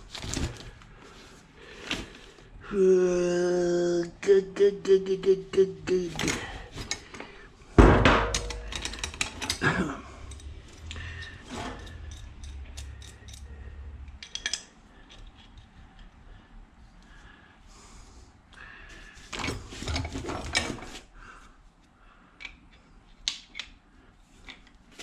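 Small metal scrap pieces and hand tools handled on a workbench: scattered clinks and clatters, with a short steady pitched tone about three seconds in and a heavy thump near eight seconds.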